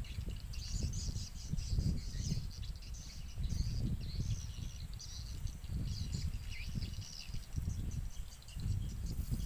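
Wind buffeting the microphone in an uneven low rumble, with birds chirping high in the background.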